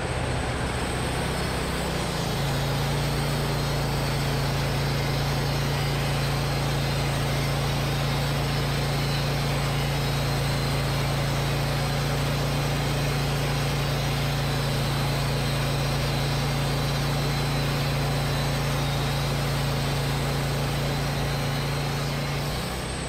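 Portable band sawmill running while sawing through a log: a steady engine drone over a hiss, settling into one constant pitch about two seconds in.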